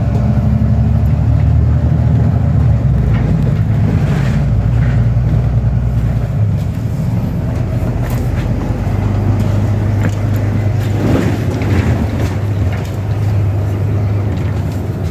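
Bus engine running, heard from inside the passenger cabin: a steady low drone whose note drops about six and a half seconds in and picks up again around nine seconds.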